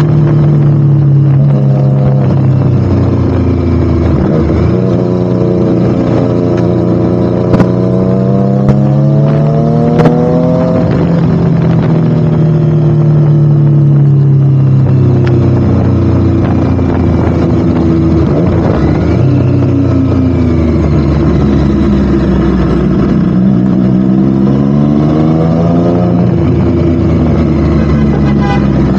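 Triumph Street Triple RS's three-cylinder engine through a Spark slip-on exhaust, running loud with its pitch swelling up and falling back several times. Three sharp cracks sound about a third of the way through.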